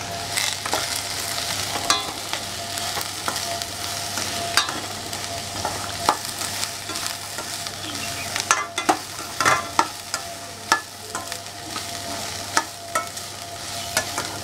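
Chopped onion, beans and carrots sizzling steadily as they sauté in oil in a stainless steel kadai. A metal slotted spatula stirs them, with frequent sharp clicks and scrapes against the pan.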